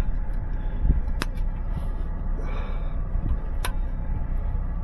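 Steady low rumble of a vehicle driving over rough ground, heard from inside the cab, with two sharp clicks or rattles about a second in and again near the end.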